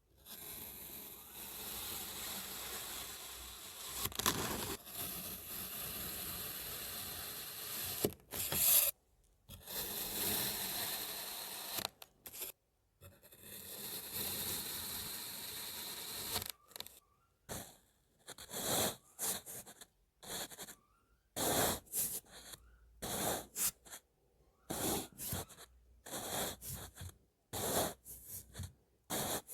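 Kinetic sand being worked by hand and tool, with grainy scraping and tearing. Three long, continuous scraping passes come first. From about halfway through they give way to a quick run of short, separate crunchy strokes.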